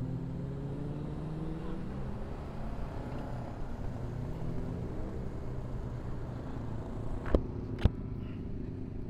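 Motorcycle engine running steadily at riding speed, heard from on board with wind and road noise, its pitch drifting slightly with the throttle. Near the end there are two sharp knocks about half a second apart.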